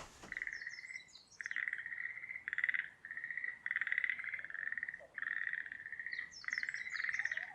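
A chorus of frogs calling: overlapping pulsed trills, each up to about a second long, following one another almost without a break. Short higher chirps come in about half a second in and again near the end.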